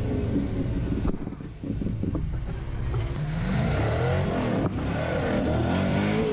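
Rock crawler buggy engines revving up and down in rising and falling pulls as the crawlers climb over rock.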